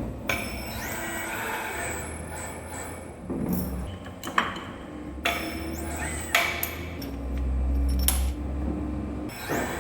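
Workshop sounds of a heavy steel pin being set up in a lathe: a series of sharp metal knocks and clanks, some ringing briefly, over a steady low machine hum.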